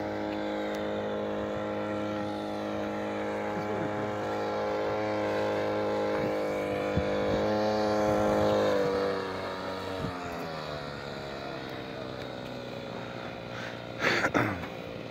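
Small petrol trimmer engine driving an outboard propeller attachment on an inflatable boat, running steadily with a clear engine tone. About nine seconds in, its pitch and level drop. A brief sharp noise sounds near the end.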